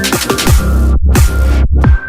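Electronic dance music with a heavy bass line and a driving beat, in the style of dubstep, that drops out briefly about a second in and again near the end.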